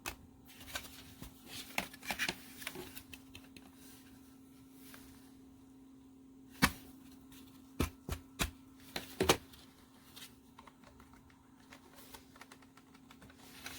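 Thin plastic parts of a vacuum cleaner being tapped and handled: scattered hollow clicks and knocks, with two louder knocks about halfway through, the plastic sounding cheap. A faint steady low hum runs underneath.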